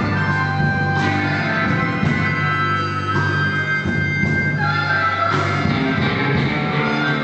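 Blues-rock band playing, guitar to the fore over a steady bass line.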